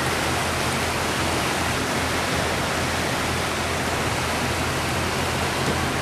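Steady rushing of water in the wake and wind over a moving boat, with a low steady engine drone underneath.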